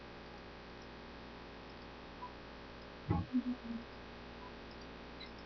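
Kitchen room tone with a steady low electrical hum. About three seconds in there is a soft knock, followed by two or three short low murmurs.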